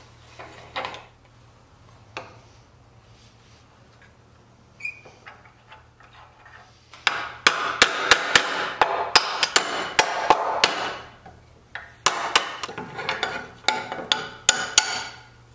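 A hammer striking steel bolts in quick, irregular metallic taps, in two bouts starting about seven and twelve seconds in, to drive the bolts out while the sliding neck-yoke rail is taken off a wooden wagon tongue. Before that there are only faint clinks of a wrench on the nuts.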